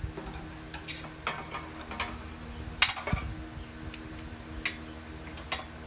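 Scattered metallic clicks and clinks from a hydraulic shop press working a Triumph Spitfire axle's universal joint as its bearing cap is forced out of the yoke. The sharpest click comes a little under three seconds in and is followed by a dull knock.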